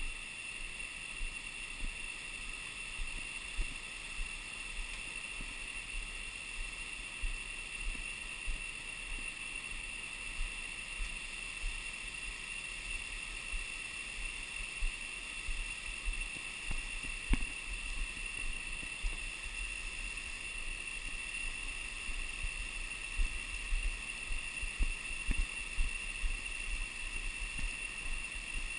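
Steady high-pitched drone of rainforest insects, over wind rumbling on the microphone and irregular dull thumps that become stronger near the end.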